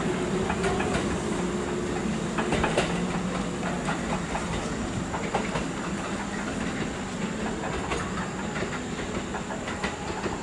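Electric train running on rails: a steady low hum and rumble, with scattered clicks from the wheels.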